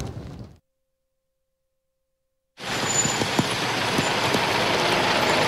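Music fades out, then about two seconds of silence; about halfway through a steady hiss comes in: a Scania fire engine's tyres throwing spray on a rain-soaked road, with a few faint ticks.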